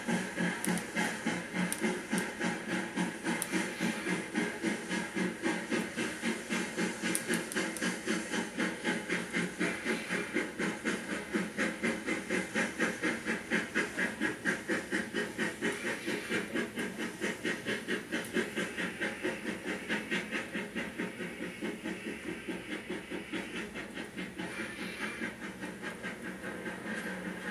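Steam locomotive chuffing played through a model railroad's sound system: a steady, even beat of exhaust chuffs with hiss, about three a second, growing a little softer in the last few seconds.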